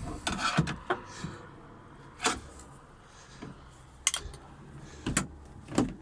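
Plastic interior trim of a car being yanked and handled, giving a cluster of sharp clicks and knocks at first, then single knocks every second or so.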